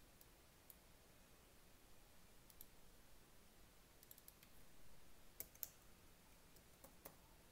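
Near silence broken by faint, scattered clicks of a computer mouse and keyboard, the two sharpest close together about five and a half seconds in.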